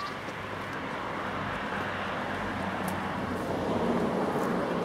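A vehicle passing on the road: an even rushing noise that swells to a peak about four seconds in and then starts to fade.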